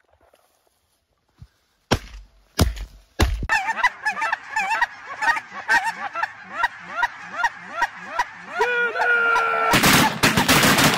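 Three shotgun shots about half a second apart. Then a large flock of snow geese honks over the decoys, many overlapping calls, ending near the end in a rapid volley of shotgun fire from several hunters.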